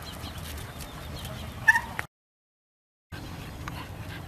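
Outdoor ambience of people and bulldogs walking on a path: a steady low rumble with faint scattered ticks. A short, sharp, high-pitched animal call about a second and a half in is the loudest sound, and the sound then cuts out completely for about a second before the ambience returns.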